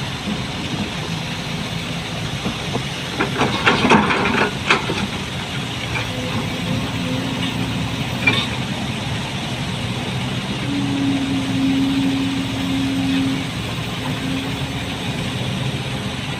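Heavy diesel engine running steadily, with a burst of metal clanks and knocks about four seconds in and a single knock a few seconds later. A steady higher hum joins for a few seconds past the middle.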